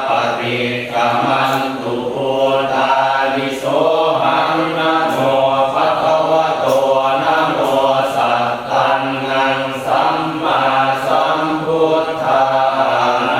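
Buddhist monastic chanting of Pali verses in the Thai Theravada style: a steady, near-monotone recitation that runs on without a break.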